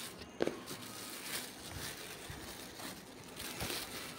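Packaging rustling and crinkling as a sneaker box and its wrapping are handled, with scattered light clicks and one sharper tap about half a second in.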